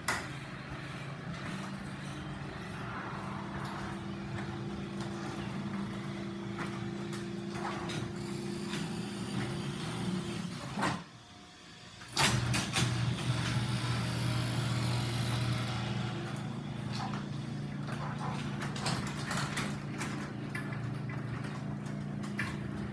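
Belt drive garage door opener running with a steady motor hum for about ten seconds. It stops for a second or so near the middle, then runs again, slightly louder, to the end.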